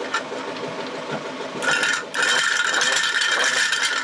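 A new electric marine toilet pump motor being test-run on temporary wiring. It starts whirring loudly about one and a half seconds in, cuts out for a moment, then runs again until it is switched off suddenly.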